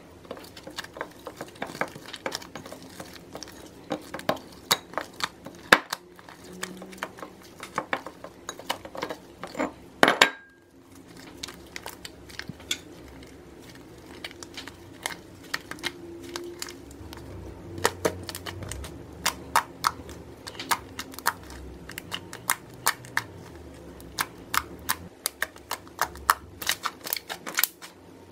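Sticky apricot-face-mask slime being stirred in a glass bowl and then kneaded and squeezed by hand, giving a steady run of small clicks and crackles. A louder sound comes about ten seconds in, followed by a brief hush.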